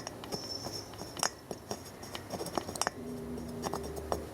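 Scattered light clicks and taps of small tools and wire being handled on a workbench, with a low steady hum coming in about three seconds in.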